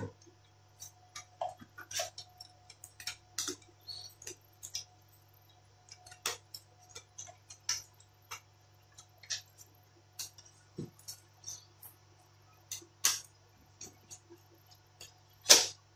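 Irregular small clicks and taps of a screwdriver and plastic and metal parts inside an opened Lenovo ThinkPad E14 Gen 4 laptop as it is taken apart to disconnect the battery and free the motherboard. The loudest click comes about half a second before the end, over a faint steady low hum.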